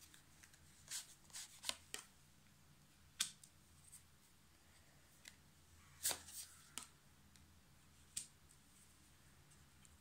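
Tarot cards being drawn from the deck and laid down on a table covered with a lace doily: a series of short, crisp card snaps and slides, in a cluster about a second in, another around six seconds in, and single ones between.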